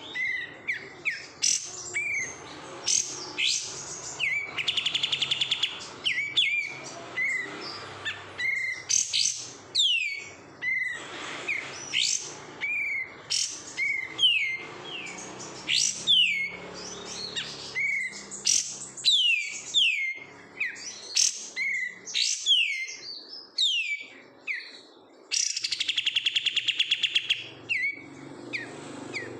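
Kapas tembak, a bulbul, singing: a long run of sharp, downslurred whistled notes, broken twice by a fast buzzy trill, about five seconds in and near the end.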